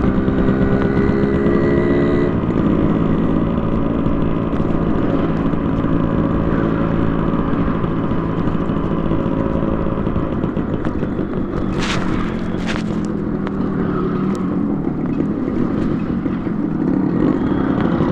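Yamaha RX100's two-stroke single-cylinder engine running through a custom expansion-chamber exhaust while riding. The engine note drops about two seconds in, holds fairly steady, and climbs again near the end as the throttle opens.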